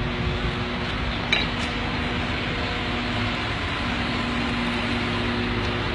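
Steady rushing background noise with a faint low hum running through it, and one brief click about a second and a half in.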